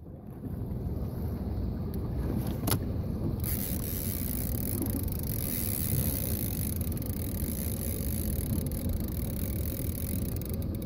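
Boat motor running steadily in reverse: a low, even rumble.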